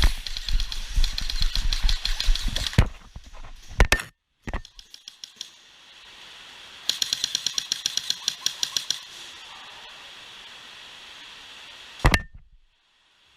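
Airsoft Hi-Capa gas blowback pistols firing rapidly, a fast run of sharp clacking shots that stops about three seconds in and another run of roughly seven shots a second later on. A few single knocks come between the runs and one near the end.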